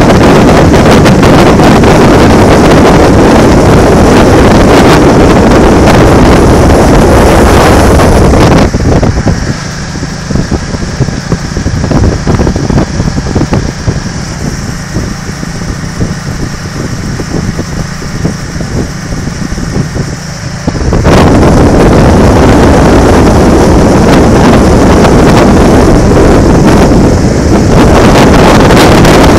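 Heavy wind blasting across a camera microphone on a Can-Am Spyder riding at road speed, with road and engine rumble underneath. About nine seconds in the wind noise drops away to a lower rumble for around twelve seconds, then comes back at full strength.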